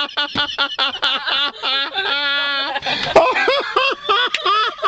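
Several people laughing hard in a rapid ha-ha rhythm, with one drawn-out wavering cry of laughter a little after two seconds in.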